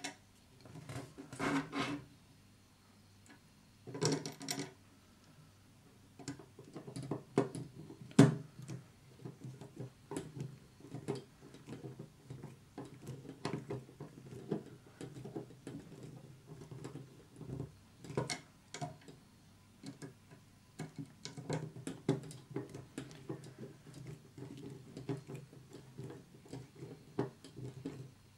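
A small hand screwdriver driving tiny screws into a model truck's chassis frame: irregular light clicks and scrapes of the screwdriver tip and the parts being handled, with one sharper click a little past the quarter mark. Two short bursts of handling noise come in the first few seconds.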